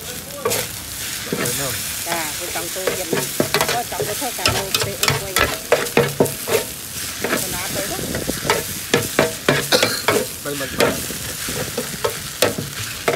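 A metal spatula scrapes and clacks against a wide, shallow iron wok in many quick strokes as fried noodles with egg and greens are stir-fried. The food sizzles steadily in the hot oil underneath.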